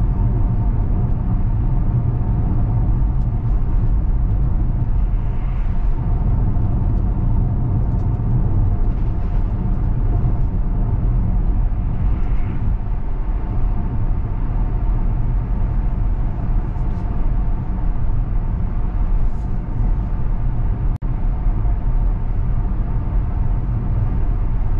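Steady road and tyre rumble heard inside the cabin of a moving Tesla Model X electric SUV, with a faint steady hum above it. The sound cuts out for an instant once, near the end.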